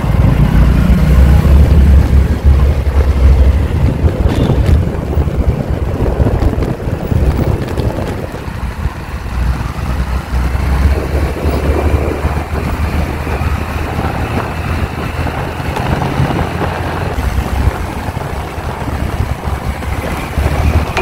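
Heavy wind buffeting a handlebar-mounted phone's microphone on a moving Honda Dio scooter at highway speed, a dense low rumble with road and scooter noise mixed in, loudest in the first few seconds.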